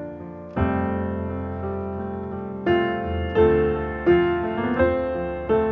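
Background piano music: sustained chords, each struck sharply and left to fade, a new one coming roughly every second.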